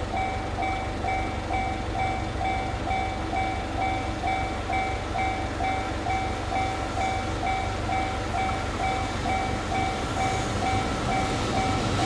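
Japanese railroad crossing's electronic warning bell ringing steadily, about three strokes a second, while the crossing is closed for an oncoming train. The rumble of the approaching train builds near the end.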